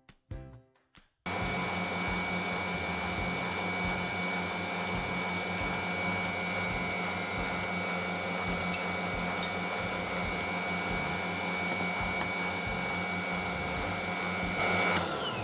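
Electric stand mixer running steadily at speed, whisking egg whites and sugar into meringue: an even motor hum with a steady high whine. It starts abruptly about a second in and stops just before the end.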